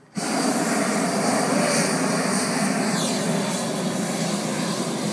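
Hot air balloon's propane burner firing in one long continuous blast, a loud steady rush that cuts in abruptly just after the start, as the balloon lifts off.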